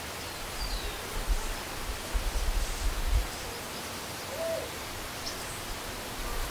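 Outdoor ambience: a steady hiss with bursts of low rumble in the first half, and a single short hoot-like animal call about four and a half seconds in.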